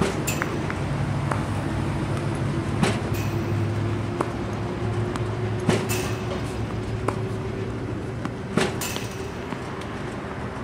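Tennis ball machine running with a steady motor hum, firing a ball with a sharp pop about every three seconds. A fainter racket strike sounds from across the court between shots.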